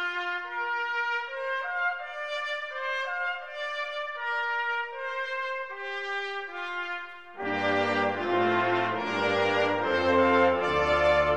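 Intro theme music with a brass-like melody played as a single line; about seven seconds in, lower parts and a bass line join and the music gets louder.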